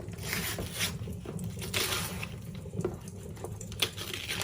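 Wrapping paper rustling and tearing as a gift box is unwrapped, with irregular crinkles and a few sharp clicks of handling.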